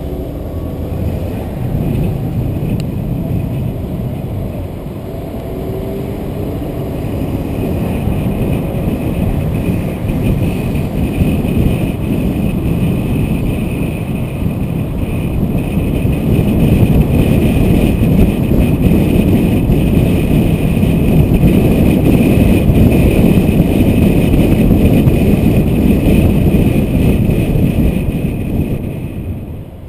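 A car driving along a road, heard as a steady rush of road and wind noise. It grows louder as the car gathers speed about halfway through, then drops away near the end as it slows.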